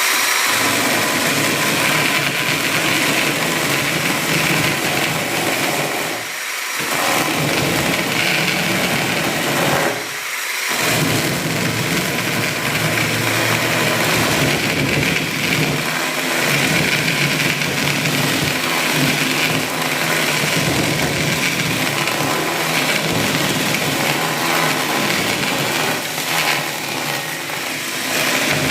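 Electric drill driving a mini chainsaw attachment, the chain running continuously and cutting through wood. It eases off briefly twice, about six and ten seconds in.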